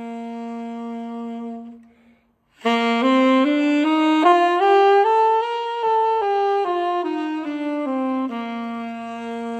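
Alto saxophone playing the G major scale as written for alto, note by note. A held low note stops about two seconds in, and after a short breath the scale climbs step by step up an octave and comes back down, settling on a long held low note near the end.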